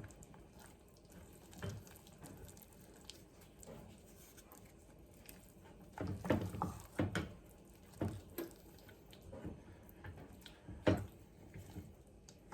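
A spoon or spatula stirring a melting mixture of butter, chocolate chips and cocoa in a saucepan, with irregular scrapes and knocks against the pot, busiest about halfway through and again near the end.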